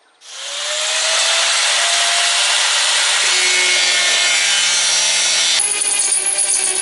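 A power tool starts up and runs steadily under load, with a faint whine rising in pitch over the first couple of seconds. About five and a half seconds in, the sound changes abruptly and turns higher and harsher.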